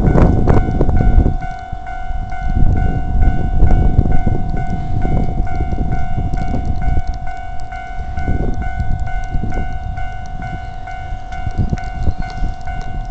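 Japanese railway level-crossing warning bell ringing on and on in a steady repeating tone, over the low rumble of trains passing the closed crossing. The rumble is heaviest in the first second and then swells and fades.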